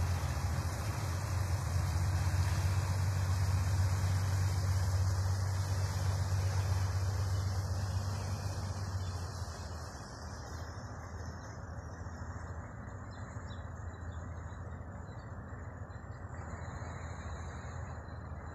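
Small fishing boat's diesel engine running with a low steady drone as it pulls away, fading out over the first ten seconds or so. Faint high chirps come in later.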